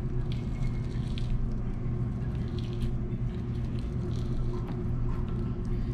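Faint wet handling sounds of a raw mahi-mahi fillet being skinned and trimmed by hand on a plastic cutting board, with small scattered clicks, over a steady low hum.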